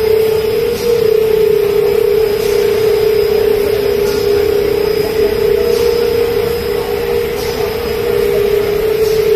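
Running candy production-line machinery: a steady, loud mechanical hum with one constant droning tone. A faint tick repeats about every second and a half.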